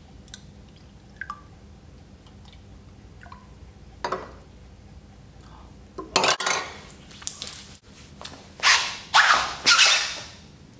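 Light drips and small clinks, then several loud splashing bursts of liquid near the end.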